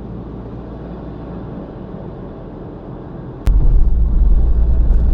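Car driving: steady low road and engine noise that jumps abruptly to a much louder low rumble about three and a half seconds in, with a couple of faint clicks after.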